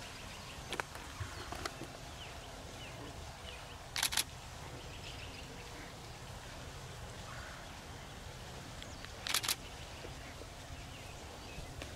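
Faint bird chirps over a quiet rural background hum, with a sharp double click about four seconds in and another a little after nine seconds.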